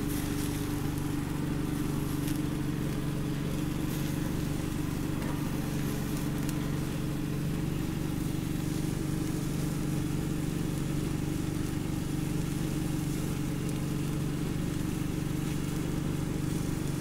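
An engine running steadily at an even, unchanging speed, a constant low hum, with a fainter hiss of meat on the charcoal grill beneath it.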